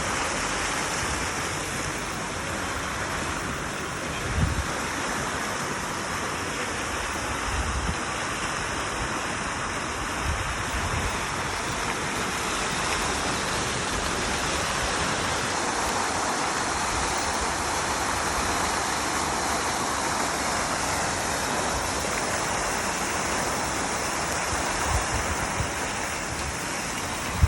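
Water fountain splashing steadily, a continuous hiss and spatter of falling water, with a few brief low thumps now and then.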